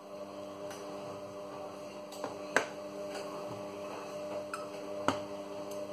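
A steady electrical hum with a series of sharp clicks and taps from a knife and items being handled on a plastic cutting board, the loudest about two and a half seconds and five seconds in.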